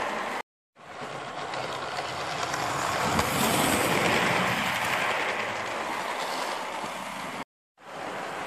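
A model railway train running along its track: a steady rushing rumble of motor and wheels. It cuts out twice for a moment, about half a second in and near the end.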